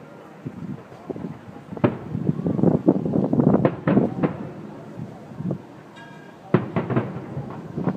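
Fireworks display: shells bursting in irregular clusters of bangs and crackles, with two sharp loud bangs near the end.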